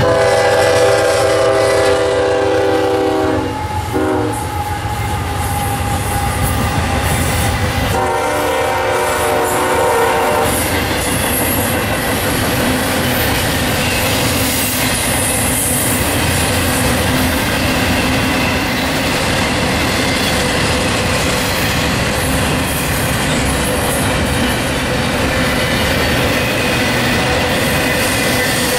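Freight train locomotive sounding two long horn blasts in the first ten seconds as it approaches. A double-stack container train then passes close by with a steady rumble and the clatter of wheels on the rail joints.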